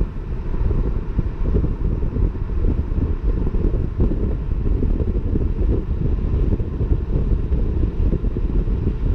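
BMW F30 335i's turbocharged straight-six and exhaust running at light, steady cruise, a low rumble with wind buffeting the microphone. Nothing stands out from the exhaust, which is not especially loud here.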